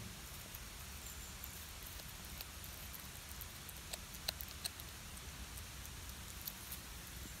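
Cat chewing a whole raw river fish, crunching through it: scattered sharp crackling clicks at an uneven pace, a few louder ones about four seconds in.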